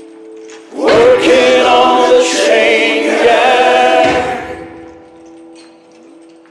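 Soundtrack music: a choir of voices swells in about a second in, holds a chord, and fades away, leaving a single low note held underneath.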